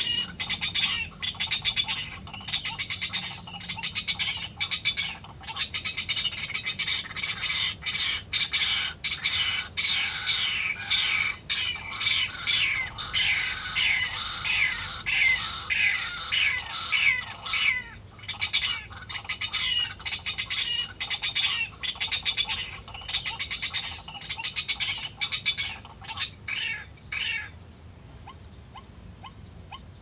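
White-breasted waterhen (ruak-ruak) calling in a rapid, harsh, repeated series that stops abruptly about 27 seconds in, leaving only faint ticking.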